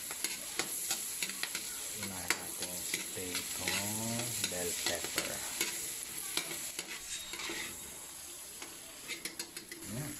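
Tomatoes sizzling as they sauté in melted butter in a steel wok, with a metal ladle scraping and clinking against the pan as they are stirred. The sizzle eases off a little over the last few seconds.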